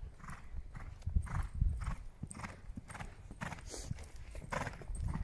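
A horse cantering on a sand arena, its hooves thudding in a regular beat, and jumping a fence partway through.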